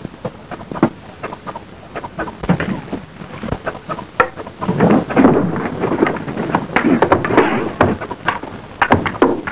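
A scuffle of men boarding a boat: irregular knocks and thumps over a rushing noise, busiest from about five seconds in.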